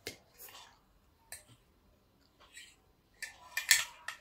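Metal fork clicking and scraping against a ceramic plate as a piece of sponge cake is cut, with a few sharp taps and a louder burst of scraping near the end.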